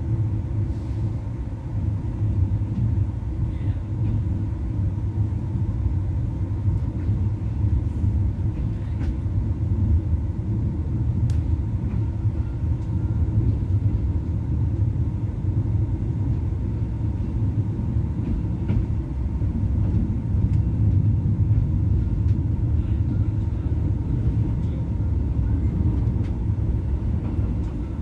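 Steady low rumble of a moving passenger train heard from inside the coach, wheels running over the rails, with a few faint clicks.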